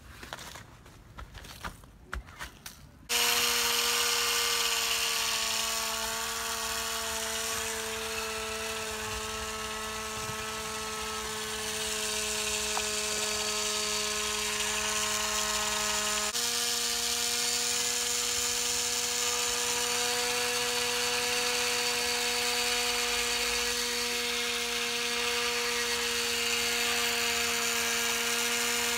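Small electric winch motor on a model mini two-wheel tractor, whining steadily as it reels in a taut line under load. It starts suddenly about three seconds in, after a few light knocks, and its pitch steps up slightly a little past halfway.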